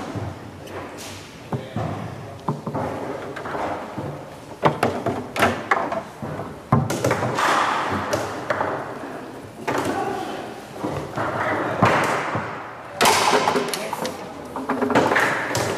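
Leonhart foosball table in play: irregular sharp knocks and clacks of the rods, figures and ball, some of them hard slams.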